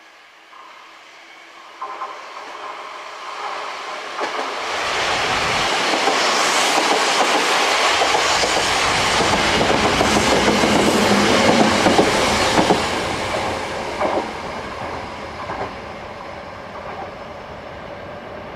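Sanyo Electric Railway 5000-series six-car electric train approaching and passing close by, its wheels clacking over the rail joints. It grows loud over the first few seconds, is loudest about halfway through, then fades as it moves away.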